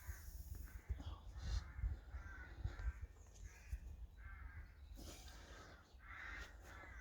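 Crows cawing in a long series, about one or two harsh caws a second, with low knocks and rumble underneath.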